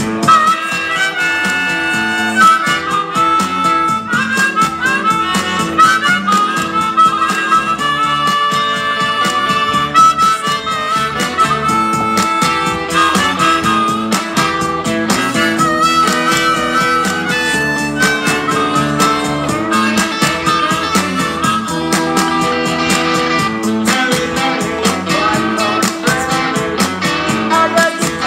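Blues harmonica played into a cupped handheld microphone and amplified, with held, bending notes and quick runs over backing music with a steady beat.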